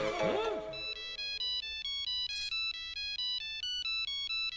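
Mobile phone ringing with a melodic ringtone: a quick tune of short, clear notes stepping up and down, coming in about a second in as background music fades out.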